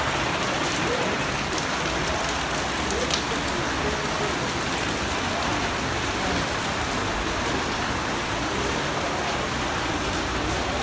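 Heavy rain pouring down, a steady, even hiss of rain hitting the ground and surfaces.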